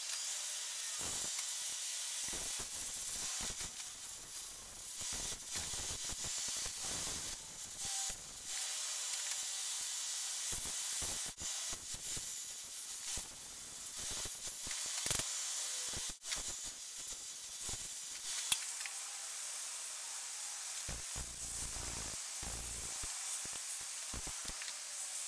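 A wooden screwdriver handle spinning on a JET 4224B wood lathe and being worked, giving a steady high hiss, with occasional short knocks.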